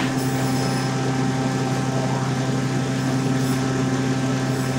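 Steady mechanical hum of food-processing plant machinery, a constant low drone, with a single sharp knock at the very start.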